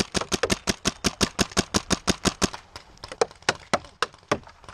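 Paintball marker firing rapid cover fire, a fast even string of about nine shots a second for a couple of seconds, then slowing to about four shots a second.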